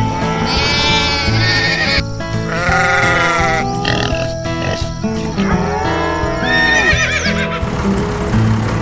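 Country-blues background music with farm-animal call sound effects laid over it: three long, wavering animal calls, about a second to a second and a half each.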